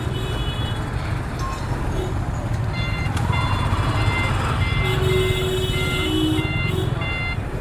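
Street traffic heard from a motorcycle stuck in a jam: a steady low rumble of engines and road noise. From about three seconds in, a short electronic beep repeats a little over twice a second, like a vehicle's reversing or warning beeper.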